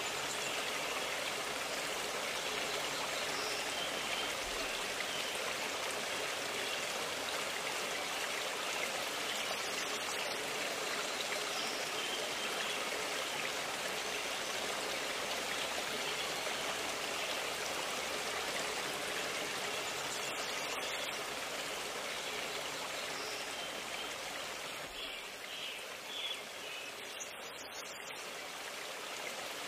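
A river running: a steady, even rush of flowing water that eases off slightly near the end.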